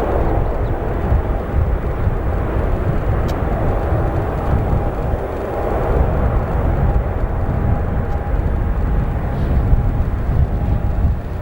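Airliner jet engines running with a steady low rumble and a faint, steady whine, as heard during an airliner's landing.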